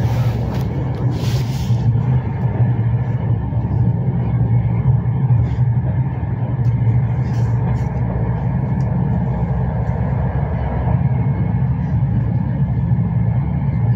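Intercity passenger train running at speed, heard from inside the carriage: a steady, loud, low rumble of wheels on the rails. Two short hisses come about a second apart near the start.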